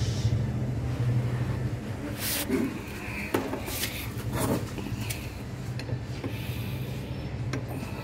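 Hands working the open primary drive of a Royal Enfield cast-iron engine: metal rubbing and scraping on the clutch and chain sprockets, with a few sharp clicks, over a steady low hum.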